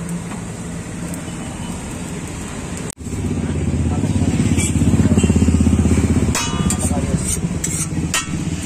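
Steady low engine rumble of nearby traffic, with voices in the background. About three seconds in, the sound drops out for a moment and comes back with the rumble louder, and a few sharp clicks come near the end.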